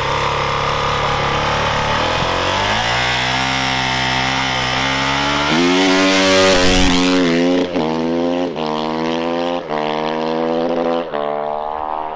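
Motocross bike engine at idle, then revved repeatedly: the pitch climbs and drops several times in the second half as the throttle is blipped.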